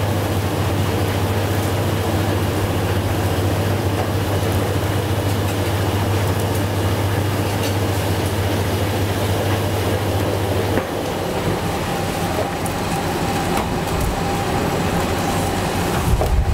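A machine running: steady noise with a low hum, the hum cutting out about eleven seconds in while the noise carries on.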